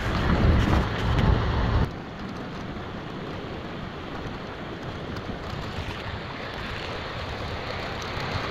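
Wind buffeting the microphone in low gusts, then, after an abrupt cut about two seconds in, a quieter steady rushing noise.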